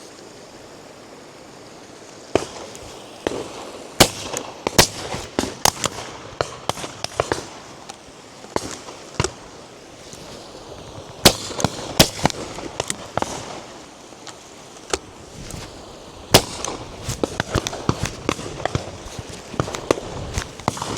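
Shotguns firing repeatedly along a line of guns. Some shots are loud and close and others fainter and farther off, with clusters a few seconds in and again around the middle.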